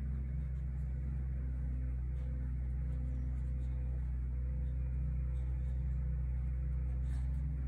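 A steady low hum, several deep tones held at an even level.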